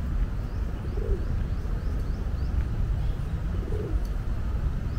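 A dove cooing twice, about a second in and again near four seconds, with a small bird giving a quick run of high chirps in between, over a steady low rumble.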